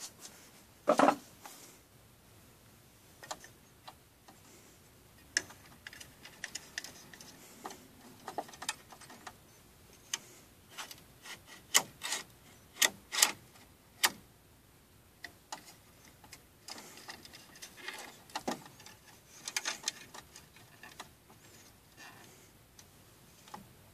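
Irregular clicks and knocks of plastic and metal as the frame holder arm of a Brother PR600-series embroidery machine is handled and its thumb screw worked. The sharpest clicks come about a second in and in a quick run around the middle.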